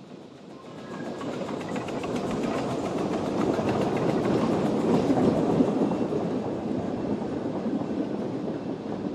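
Two narrow-gauge steam locomotives, one of them Hunslet-built 'Jack Lane', passing close with a train of carriages: a fast, regular beat of exhaust and wheel clatter that builds to a peak about halfway, then eases as the carriages roll by.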